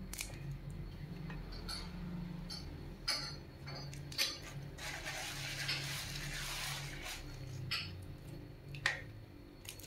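Metal spoon clinking against a pan, about six sharp clinks spread out, as raw beef meatball paste is scooped off the hand into a pan of water. A low steady hum runs underneath.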